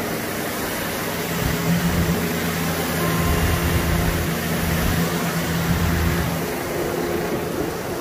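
An engine running with a steady low hum over a constant rushing noise; the hum fades out about six and a half seconds in.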